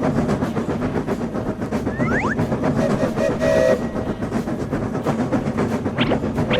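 Animated train running, with a fast, continuous clatter of wheels over the rails. A short horn-like chord sounds a little past the middle and a brief whistle comes near the end.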